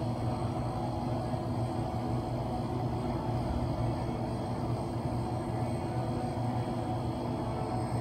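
Steady low rumble and hum of an indoor swimming-pool hall during a race, even throughout with no distinct splashes or cheers standing out.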